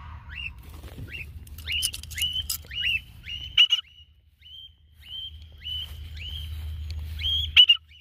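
Cockatiel calling over and over in short whistled calls, about a dozen, each dropping off at the end. Wind rumbles on the microphone underneath, with two sharp knocks about halfway and near the end.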